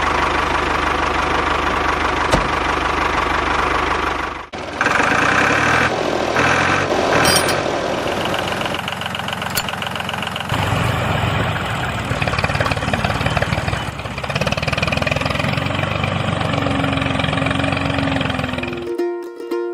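Vehicle engine running steadily. Its note changes about four and a half and ten and a half seconds in, and it stops shortly before the end.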